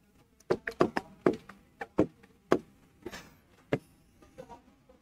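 Sharp, irregular taps on the glass of an interactive touchscreen whiteboard, about eight in all, with a brief high swish around three seconds in as a line is drawn on the screen.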